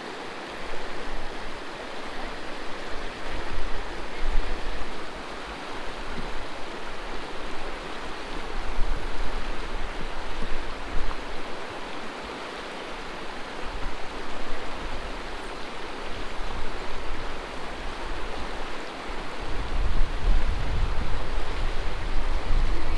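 Steady rush of river water, with low gusting wind buffeting on the microphone that grows stronger near the end.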